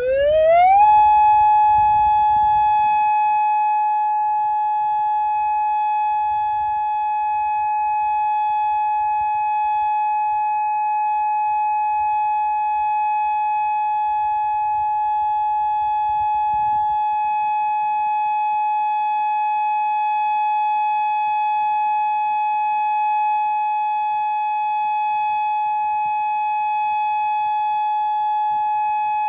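Federal Signal Modulator 6024 electronic outdoor warning siren sounding a steady alert tone during a test: the pitch rises quickly over about the first second, then holds one unwavering tone.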